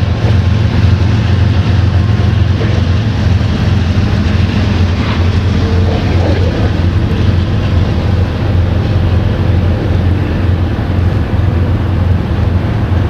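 Freight train crossing a steel truss bridge: a steady low rumble from the diesel locomotives and the rolling gondola cars.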